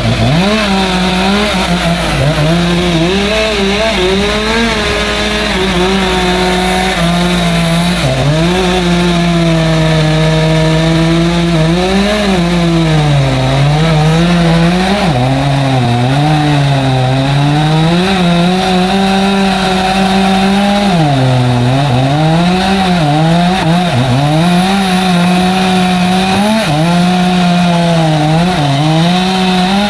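Chainsaw running and cutting wood. Its engine pitch sags again and again as the chain is loaded in the cut, then rises back toward full speed.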